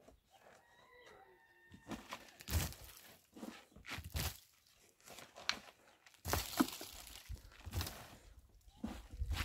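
A short animal call about half a second in, then an irregular run of knocks, rustles and scrapes, the loudest a little past the middle.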